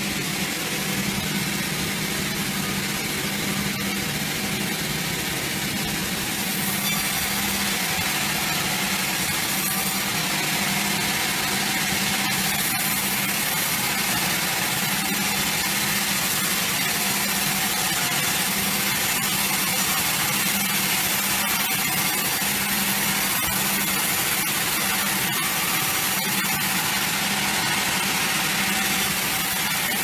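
Sawmill band saw headrig running and cutting lengthwise through a large log: a steady machine hum under a rushing hiss of blade in wood, which grows louder about six or seven seconds in.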